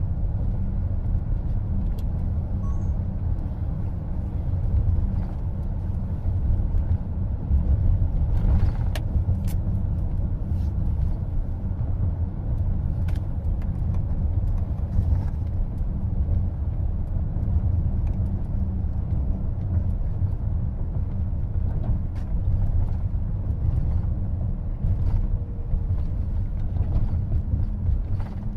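Cabin noise of a car driving on the road: a steady low rumble of tyres and road with a few faint clicks.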